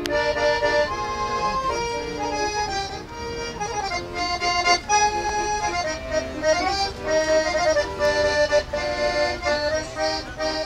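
Instrumental music playing a melody of held notes that shift in pitch.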